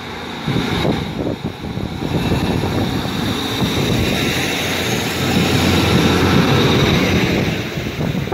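Class 150 Sprinter diesel multiple unit running along the platform, its underfloor diesel engines and wheels on the rails growing louder as the carriages pass close by.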